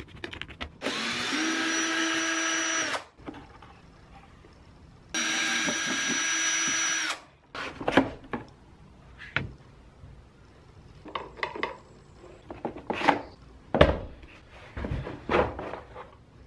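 Electric screwdriver running twice for about two seconds each time with a steady whine, backing screws out of a Kärcher pressure washer's plastic housing. After that come scattered knocks and clunks of the plastic casing being handled on the bench.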